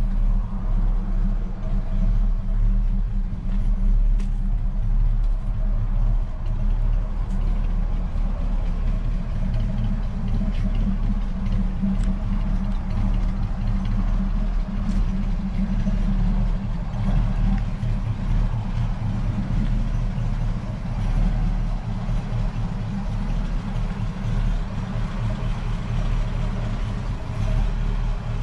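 1950 Ford F2 pickup's flathead V8 idling steadily.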